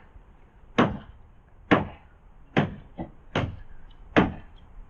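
Hammer blows, five strong knocks and one lighter one, each a little under a second apart, steady and regular.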